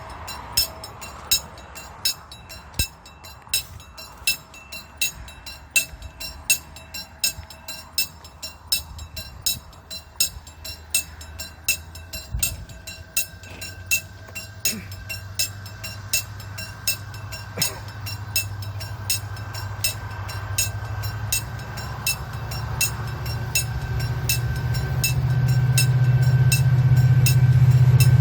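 Railway level-crossing warning bell on the Jungang Line, ringing in even, hand-bell-like strikes, about three every two seconds. From about halfway through, the low rumble of an approaching train builds and grows steadily louder.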